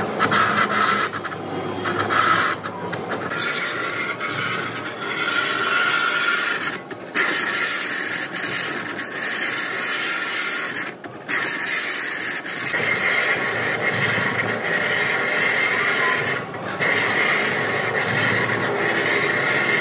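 Manual lathe turning the rim of a large spoked gear blank, the cutting tool scraping steadily along the metal. The noise breaks off briefly a few times.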